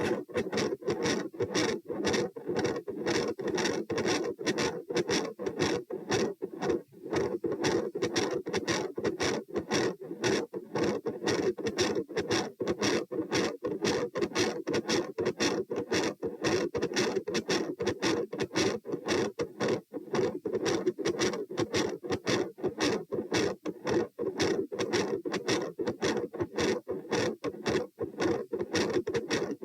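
Heart sounds through a stethoscope at the pulmonary area: a rapid heartbeat with a continuous murmur filling the gaps between beats. This is the continuous machinery murmur typical of patent ductus arteriosus.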